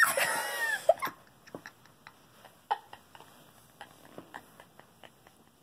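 A high, wavering squeal-like vocal sound that glides downward and stops about a second in, followed by faint scattered clicks and taps.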